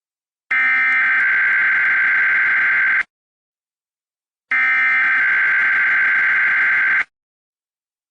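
Emergency Alert System SAME header: the digital data bursts of an EAS encoder, a harsh warbling screech, sent twice here with a silent gap of about a second and a half between bursts, each about two and a half seconds long. The header carries the coded alert, here a Required Monthly Test, and is what triggers downstream stations and cable systems to relay it.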